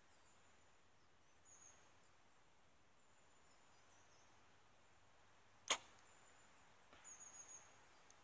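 Mission Hype DT compound bow being shot: one sharp crack of the string and limbs as the arrow is released, about five and a half seconds in, with a short tail after it.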